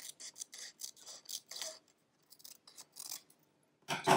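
Scissors snipping paper: a quick run of short cuts, about four or five a second, trimming a strip down to a very thin sliver. The snips then thin out to a few fainter ones, and there is one louder knock on the table near the end.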